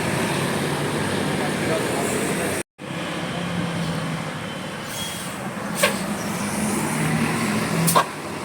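Roadside traffic noise with a large vehicle's engine running, broken by a brief dropout a little under three seconds in. Two sharp clicks follow later on.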